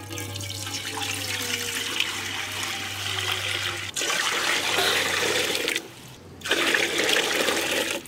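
Water poured in a heavy stream from a steel bowl into a large aluminium cooking pot, splashing onto the pot's bottom. The stream stops briefly a little before six seconds in, then a fresh bowlful is poured. The water is being measured out for boiling rice, three bowls of water to one of rice.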